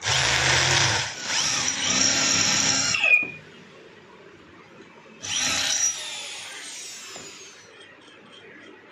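Electric drill boring out the stripped spark-plug hole of a Honda CD 70 aluminium cylinder head to take a plug bush. It runs for about three seconds, easing briefly after the first second, then winds down; a second, shorter burst about five seconds in is followed by a falling whine as the drill spins down.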